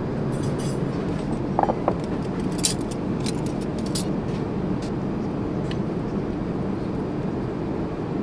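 Steady airliner cabin noise, the even low rush of engines and air in flight, with a few light clicks and clinks of cutlery and tableware in the first few seconds as a napkin is unfolded and breakfast begins.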